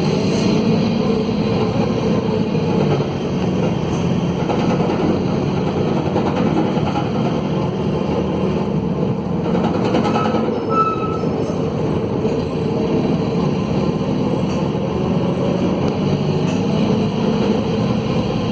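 Mercedes-Benz OM904LA four-cylinder turbo-diesel of a city midibus running loud under way, its note rising and falling with the revs. The exhaust is broken, so the engine is excessively noisy. A brief high squeal sounds about ten seconds in.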